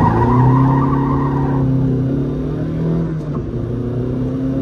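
Car engine running at a fairly steady pitch, with a harsher, higher noise over the first second and a half that then fades.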